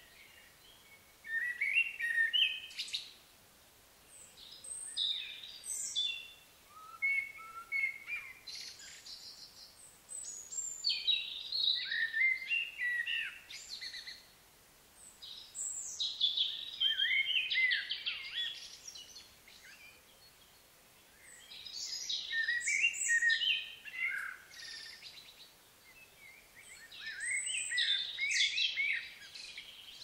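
A songbird singing in a string of phrases of quick, varied high notes, each a few seconds long, with short pauses between them.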